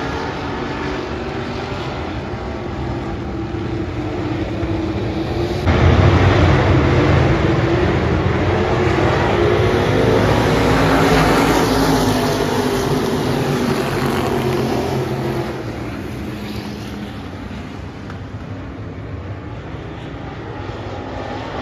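A field of USRA stock cars running on a dirt oval, their V8 engines blaring together as the pack passes the grandstand. The sound turns suddenly louder about six seconds in and falls away after about fifteen seconds as the cars move on around the track.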